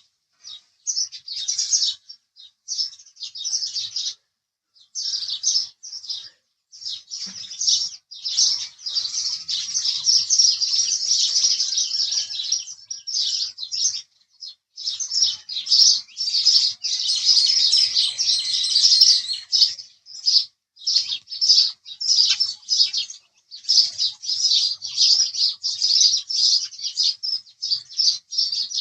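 House sparrow chirping in rapid strings of short, high chirps, broken by brief pauses and running together into continuous chatter for several seconds in the middle.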